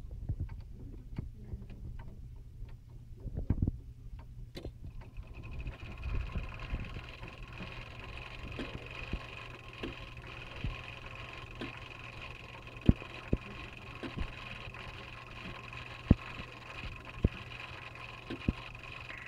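Repaired McClintock chime clock movement running on test: in the first few seconds the mechanism clicks and rattles as it is adjusted by hand, then about five seconds in a steady high whine sets in over a low hum, with a few sharp single clicks from the mechanism.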